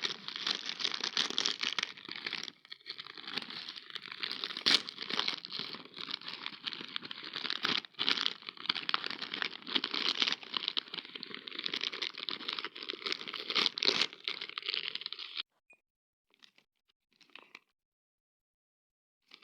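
Plastic snack packet crinkling and tearing as it is opened, a dense crackle with sharp cracks mixed in. It stops abruptly about four-fifths of the way through, followed by a couple of faint crunches.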